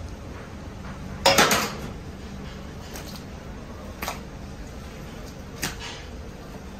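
Handling sounds as a large sheet of dough is flipped and folded over a heap of raw octopus on a plastic worktable: one loud burst about a second in and two short, lighter knocks later, over a steady hum.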